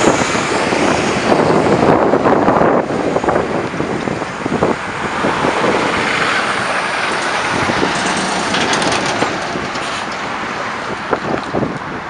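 City bus driving off across a railway level crossing, its engine and tyre noise fading as it pulls away, followed by steady road traffic with cars passing.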